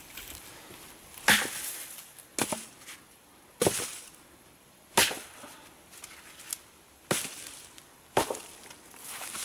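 Dead branches being stacked onto a wood pile, giving about six sharp wooden knocks and cracks roughly a second apart.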